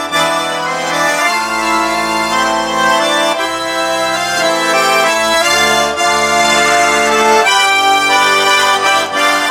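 Russian garmon (button accordion) playing a melody over sustained chords, with the bass notes changing every second or two.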